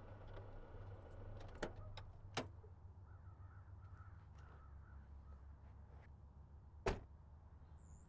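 Car door being worked: two sharp clicks early on, then one louder knock of the door shutting near the end, over a low steady outdoor hum.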